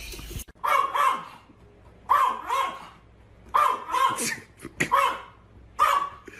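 A dog barking in quick pairs of barks, repeated about five times at intervals of roughly a second and a half.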